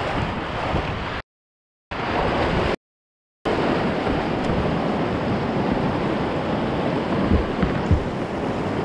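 Rushing whitewater of a river rapid churning and splashing around a plastic whitewater kayak, heard close up. The sound cuts out completely twice within the first few seconds.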